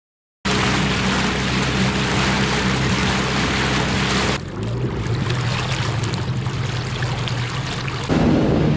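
Outboard motor running steadily on a small boat under way on a river, heard from aboard, with the rush of water along the hull. The sound starts abruptly about half a second in, changes at a cut about four seconds in, and gets louder near the end.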